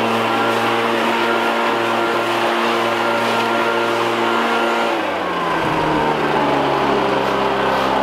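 Stihl BR 700 backpack leaf blower's two-stroke engine running at high throttle, blowing leaves. About five seconds in the throttle is eased and the engine drops to a lower, steady speed.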